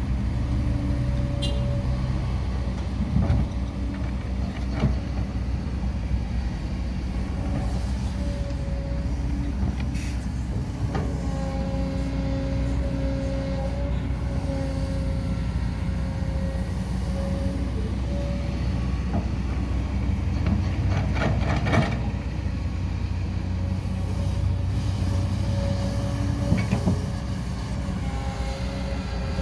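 Diesel engine of heavy earthmoving machinery running steadily under load, with an on-and-off hydraulic-type whine and a few short metallic knocks, the clearest of them about 22 seconds in.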